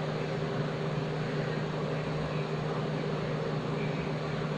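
Steady mechanical hum with a constant low drone, unchanging throughout.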